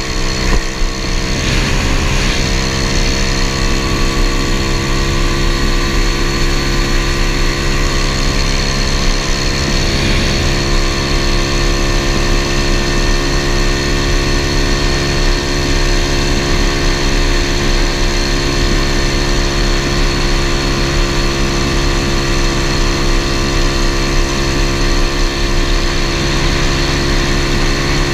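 Swapped-in 125cc pit bike engine of a modified 1981 Honda ATC70 mini three-wheeler, a single-cylinder four-stroke, running at a steady cruising speed while riding. Wind rumbles on the microphone underneath.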